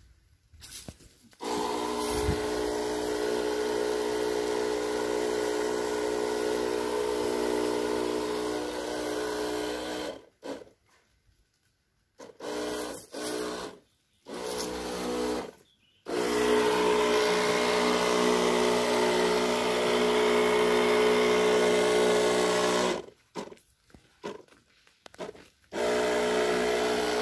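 Battery-powered backpack sprayer's pump motor humming steadily while spraying, with a hiss of spray over it. It cuts out about ten seconds in, comes back in two short runs and then a long one, stops again, and starts once more near the end.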